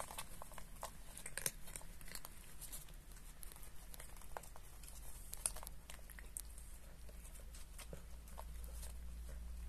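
Cats crunching dry kibble from a shared tray: a scatter of small, irregular crunches and clicks as they chew and pick up the pieces.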